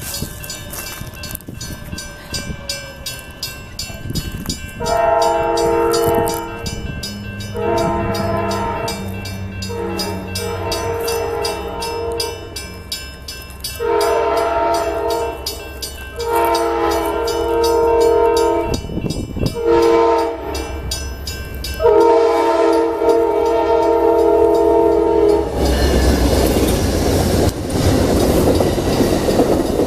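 Train horn sounding a series of blasts, each several notes at once, the last held longest, over the rumble and clicking of a moving train. Near the end the loud rushing noise of the train passing takes over.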